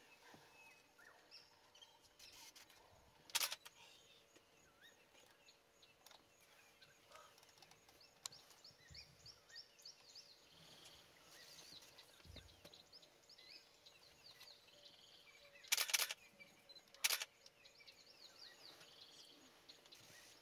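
Quiet bush ambience of rapid, high chirping from small birds, over a faint steady hum. Three sharp clicks stand out, one about three seconds in and two close together near the end, fitting camera shutter clicks.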